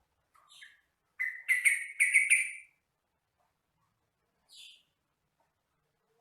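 Yellow-vented bulbul (trucukan) singing: a faint short call, then a loud bubbling phrase of about six quick notes, and one more faint note near the end.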